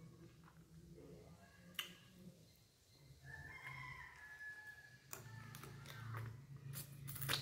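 Mouth sounds of eating with the fingers: fingers sucked clean and lips smacking, with several sharp smacks in the last couple of seconds. A faint, drawn-out bird call sounds in the background about three seconds in.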